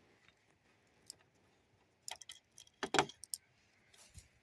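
Scrap in a dumpster clinking and knocking a few times as it is rummaged through, with quiet gaps between; the loudest knock comes about three seconds in.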